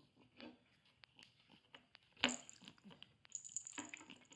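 A kitten pawing at a plastic toy stick in a wooden box tunnel: light scattered taps and scrapes, with a sharper knock about two seconds in and a busier run of small scrapes and taps near the end.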